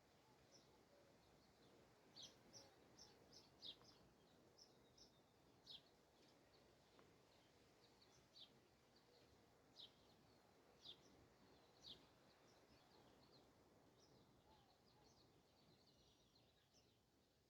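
Faint bird chirping: many short, high chirps, a few every second, over a low steady background hiss. The chirps start about two seconds in and thin out near the end.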